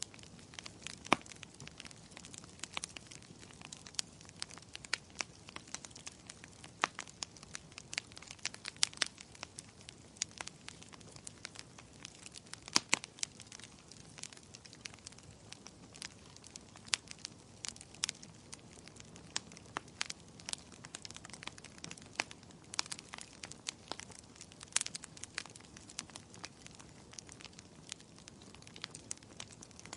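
Burning firewood crackling, with irregular sharp pops and snaps, several a second, over a soft low hiss of flame.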